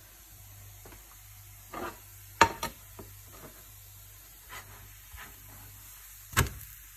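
Kitchen clatter over a low steady hum: a few sharp knocks of a plate and pan being handled, the loudest a pair about two and a half seconds in and one more near the end, with lighter taps between.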